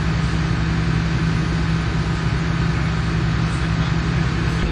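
A vehicle engine idling steadily: a low, even hum with a fast regular pulse.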